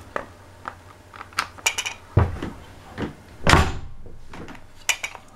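Clicks and knocks of a Fluke 175 multimeter's plastic case and flip-up tilt stand being handled while its back screws are undone with a screwdriver. Two heavier thumps come about two seconds in and about three and a half seconds in, the second the loudest.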